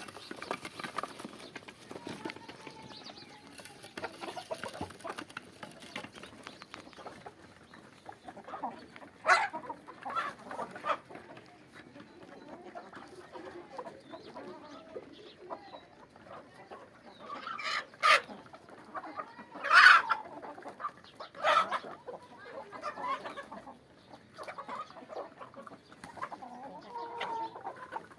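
Aseel chickens clucking and calling steadily, with scattered louder calls, the loudest about twenty seconds in.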